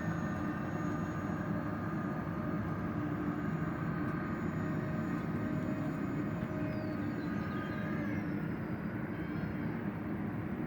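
RC Airbus A320 model jet's electric ducted fans running with a steady whine over a rushing noise, the whine dropping in pitch and fading about eight seconds in as the throttle comes back on the landing approach.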